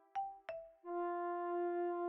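Background music of held, steady notes, with two short plucked-sounding notes near the start.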